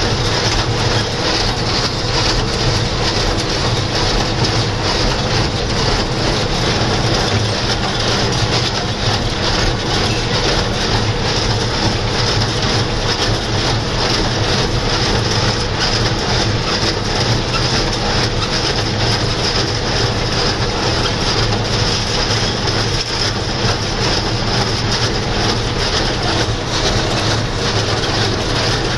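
John Deere 2140 tractor's diesel engine running steadily under load while pulling a working New Holland 268 hay baler, with a continuous mechanical clatter from the machinery.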